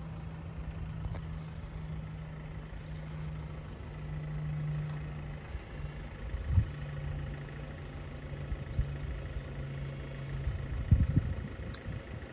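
An engine idling with a steady low hum that shifts slightly lower near the end, with a few brief low thumps.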